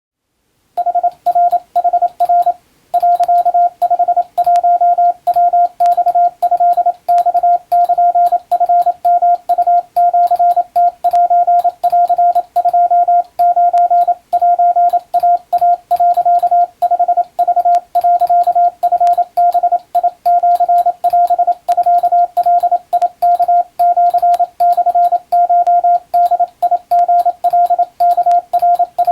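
Morse code (CW) tone, a single pitch of about 700 Hz keyed on and off in quick dots and dashes, starting about a second in and running without pause after a short gap near the start. It is sending Japanese wabun telegram practice text.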